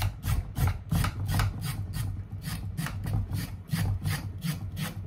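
Quick, regular rasping strokes, about three a second, of a knife working root vegetables by hand.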